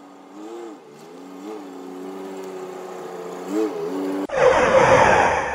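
Pickup truck engine running as it drives up close, growing louder, with brief small revs. About four seconds in it is cut off by a sudden, much louder rushing noise.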